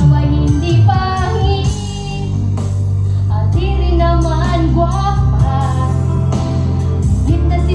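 A woman singing a slow ballad into a microphone over a backing track, with a steady bass line and a regular beat beneath her wavering melody.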